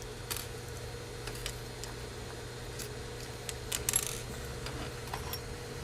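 Light metal clicks and clinks, a few scattered and a small cluster about four seconds in, as the needle plate is taken off a sewing machine. A steady low hum runs underneath.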